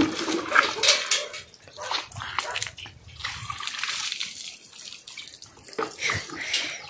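Water splashing in irregular bursts as a plastic mug of water is poured over a wet German Shepherd's coat and dipped back into a plastic bucket, with small knocks of the mug against the bucket.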